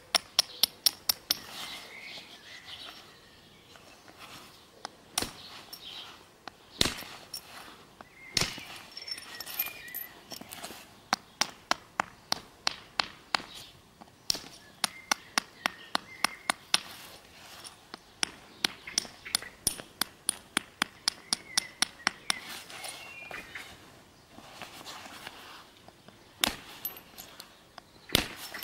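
Flint being knapped: runs of quick, sharp taps on the stone, about five a second, with pauses and a few single, louder strikes between the runs.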